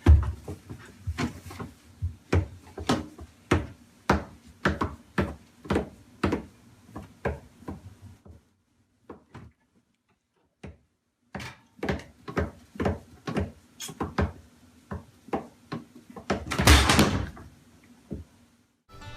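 Irregular light knocks and taps on a hard surface, two or three a second, stopping for a couple of seconds about halfway and then resuming, with a longer, louder scraping rustle near the end.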